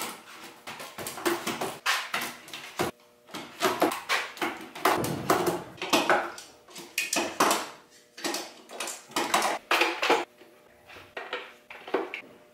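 Steel bar clamps clanking and clinking as they are hung on a wooden wall rack: many irregular metal knocks of the clamps against the wood and against each other.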